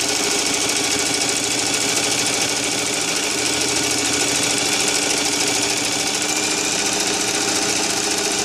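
Singer Heavy Duty electric sewing machine running at a steady speed, sewing a zigzag stitch, with a fast, even rhythm of needle strokes.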